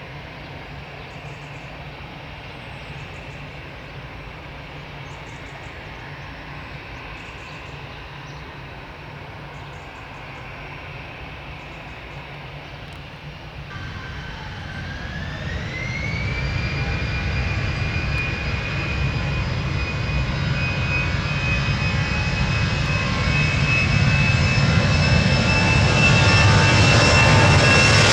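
Airbus A319 jet engines running at low power, then, about halfway through, spooling up to takeoff thrust with a rising whine that settles into a steady high-pitched tone. The engine noise grows steadily louder toward the end as the takeoff roll builds.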